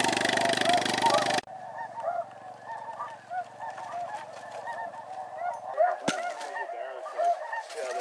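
Snow geese calling: many short, overlapping high honks that go on without a break. A loud steady drone covers them for the first second and a half and cuts off abruptly, and a sharp click comes about six seconds in.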